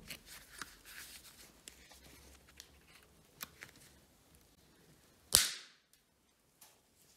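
MIG welding torch and side cutters being handled: small metal clicks, then one loud sharp crack with a short fading hiss about five seconds in.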